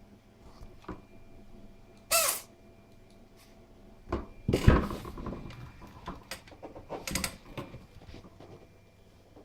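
Domestic cat sneezing in a series of short sharp bursts: the first, about two seconds in, carries a brief pitched tone; a rougher, louder cluster follows around four to five seconds in, and another burst near seven seconds. It is an unusual-sounding sneeze.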